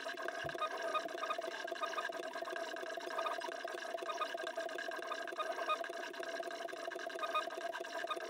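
Stepper motors of a pen plotter built on a Zonestar Z6F 3D printer whining as they drive the pen through its X and Y moves, a steady hum of several tones with short blips as the moves change.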